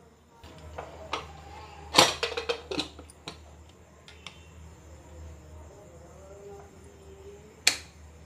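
Aluminium pressure cooker lid being fitted and closed: a run of metal clanks and knocks about two seconds in, a few lighter taps after, and one sharp click near the end.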